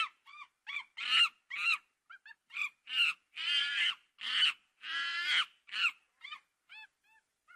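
Long-tailed macaque calling: a rapid run of short, high, pitched calls, some longer and wavering, thinning to a few short, fainter calls near the end.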